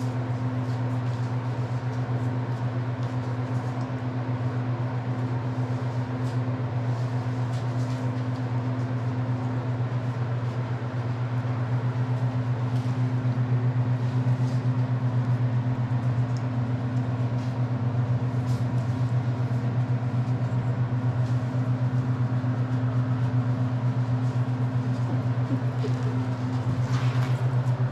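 Steady low mechanical hum, unchanging throughout, with a few faint clicks scattered over it.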